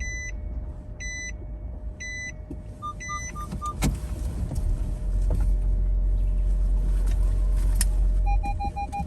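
Car being reversed, heard from inside the cabin. The reverse-gear warning beeps about once a second at first, and a low engine and tyre rumble swells for a few seconds in the middle. Near the end the parking sensor starts beeping rapidly.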